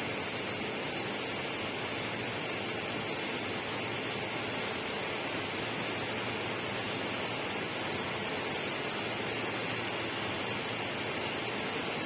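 A steady, even rushing noise from a natural ambience recording, holding one level throughout.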